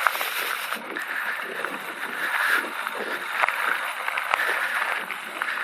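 Electric mountain bike rolling down a dirt single-track trail: tyres on dirt and loose stones, with scattered clicks and knocks from the bike rattling over the bumps.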